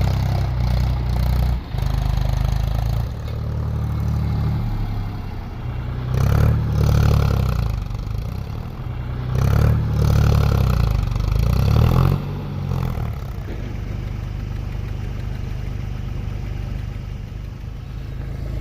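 Tractor's diesel engine running under load, revving up and back down about three times, then settling to a steadier, lower run.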